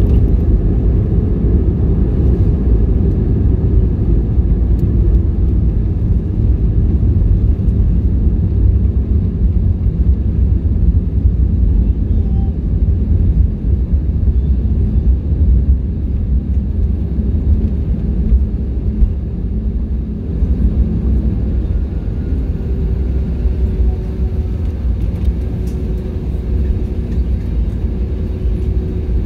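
Cabin noise of an Airbus A320neo on its landing roll-out, heard from a window seat over the wing: a loud, steady low rumble of the landing gear on the runway and the Pratt & Whitney geared turbofan engines. An engine tone sinks away in the first few seconds, and a faint steady tone comes in over the last several seconds.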